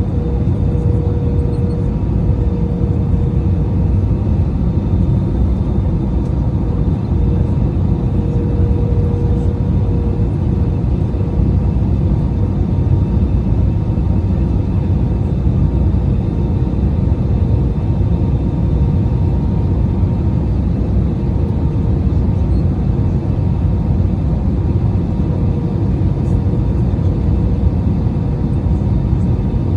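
Airbus A319 cabin noise in flight: a steady, even rumble of the engines and airflow around the fuselage, with a faint steady hum riding on top.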